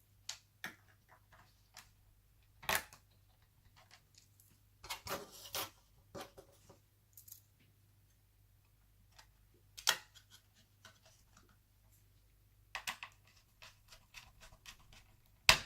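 Scattered sharp clicks and light knocks of laptop parts being handled and fitted: RAM modules pressed into their slots in a laptop. The clicks come singly or in short clusters with quiet gaps between, the loudest about ten seconds in and just before the end.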